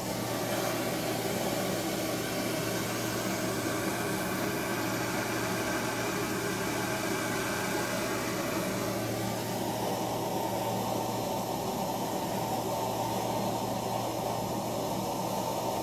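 Handheld propane torch hissing steadily as its flame dries a clay cup turning on an electric potter's wheel, over the wheel motor's low steady hum. The hiss eases slightly about nine seconds in.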